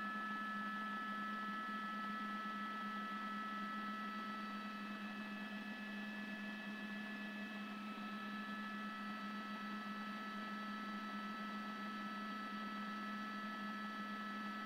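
Steady helicopter cabin noise picked up on the news reporter's open microphone: an even drone with several constant high whining tones over a low hum.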